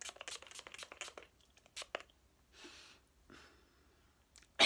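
Close handling noise: a quick run of small clicks and rustles in the first second, then a short soft hiss about two and a half seconds in.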